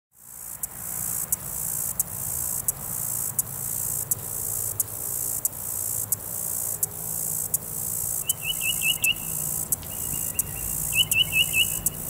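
Insect stridulation: a high, continuous hissing buzz with a regular pulse roughly every 0.7 seconds, over a low steady hum. About eight seconds in, a bird adds a short phrase of four quick high notes, and repeats it about three seconds later.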